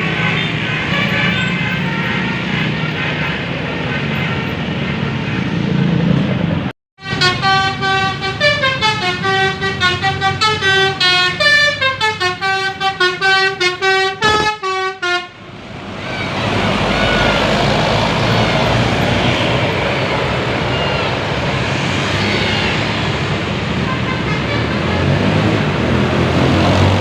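Indonesian bus 'basuri' musical horn playing a quick tune of short notes stepping up and down in pitch for about eight seconds, starting just after a brief dropout. Before and after the tune, busy road noise from passing vehicles.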